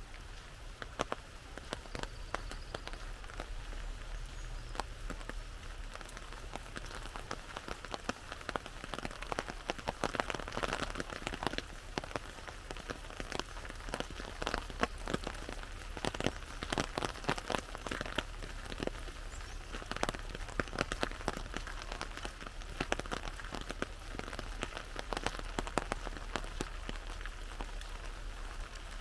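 Rain falling on an umbrella: a steady patter with many sharp single-drop ticks, densest around the middle.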